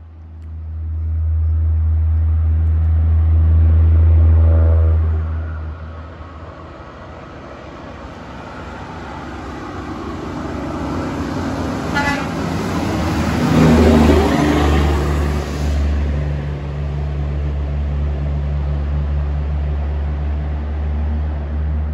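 Heavy coal trucks' diesel engines running on the road: a low engine rumble, then one truck growing louder as it passes, loudest a little past halfway, before settling back to a steady low rumble.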